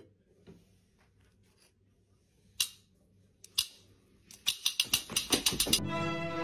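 Metal kitchen tongs clicking in an air fryer basket: scattered light clicks, two louder clacks, then a quick run of sharp clacks about four seconds in. Orchestral music with strings starts near the end.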